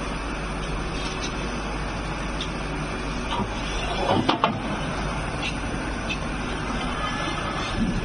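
Steady factory machinery hum, with a short cluster of metallic clanks about halfway through as a metal mould module is lifted out of the wallpaper machine's mould plate.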